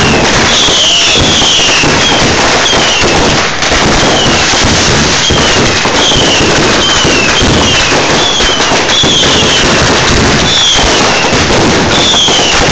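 A dense, continuous barrage of fireworks crackling and popping, with short falling whistles repeating about once a second.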